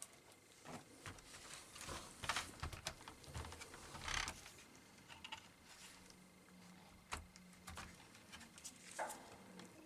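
Plastic pry tool working around the edge of an HP 2000 laptop's plastic palmrest, with scattered small clicks and scraping rustles as the case is worked loose.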